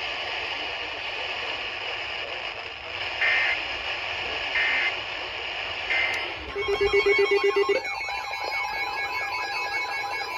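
Weather radio static followed by three short electronic data bursts, the EAS end-of-message signal closing the severe thunderstorm warning. About two-thirds of the way through it cuts to a new broadcast: a fast-pulsing electronic tone that lasts about a second, with a warbling electronic tone carrying on under it.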